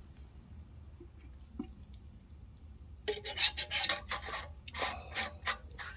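Close rustling and rubbing from handling: a couple of faint clicks, then about three seconds in a run of short scraping, rustling strokes.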